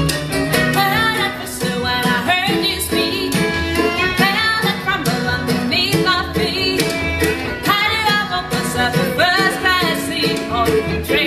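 Live bluegrass band playing: a woman sings lead over acoustic guitar, mandolin, fiddle and upright bass.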